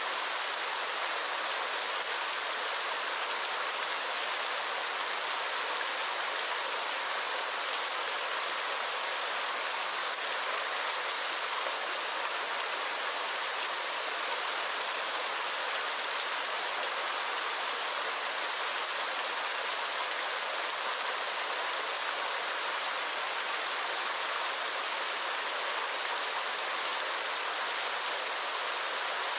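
Steady, unbroken rush of water, an even hiss with no single drops, splashes or changes standing out.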